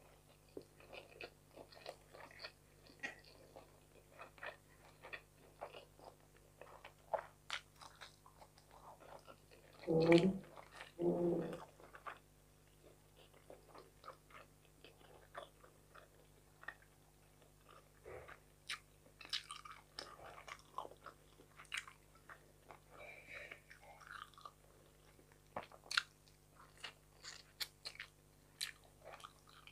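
Close-miked chewing and crunching of crispy fried fish, with many small crunches and mouth clicks scattered throughout. There are two short vocal murmurs about ten seconds in.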